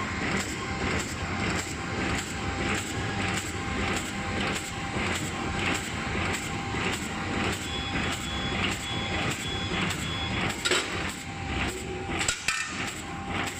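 Bag-making machine with a hot knife running, clattering in a steady rapid rhythm as it cycles through sealing and cutting the film. A run of short high beeps sounds about eight seconds in, and a couple of sharper knocks come near the end.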